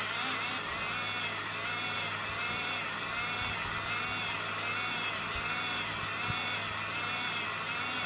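Tiny battery-operated toy washing machine running with a makeup sponge in water: its small motor whines over a low hum, the pitch rising and falling in a steady repeating cycle about once a second.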